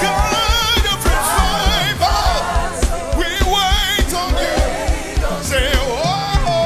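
Live gospel worship music: singing with a wide vibrato over band accompaniment with a steady drum beat.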